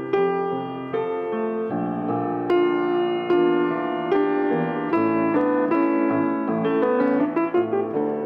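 Grand piano played slowly: sustained chords struck roughly once a second, with a brief run of quicker notes near the end.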